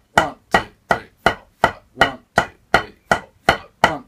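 Wooden drumsticks striking a drum practice pad in slow, evenly spaced alternating single strokes, about three a second, each a sharp crack. These are quintuplets played dead slow as a rudiment exercise.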